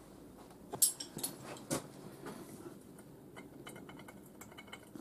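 Steel spanners clinking against a nut and bolt as they are fitted on, with a few sharp clinks and then a quick run of light metal ticks near the end.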